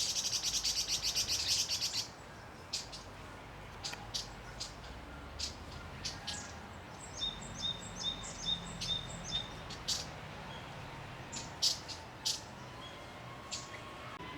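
Red-billed leiothrix calling: a harsh buzzing rattle for about the first two seconds, then scattered short sharp call notes, with a quick run of repeated notes in the middle.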